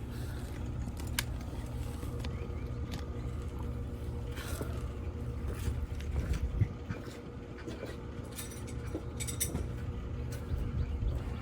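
Scattered metallic clicks and short scrapes of an adjustable wrench working a bolt loose on a gas grill's hose fitting, over a steady low rumble.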